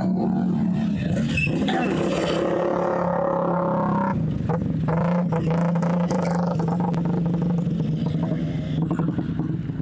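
Steady hum of a motor vehicle engine running nearby, dropping slightly in pitch about four seconds in, with cloth rustling and brushing against the microphone.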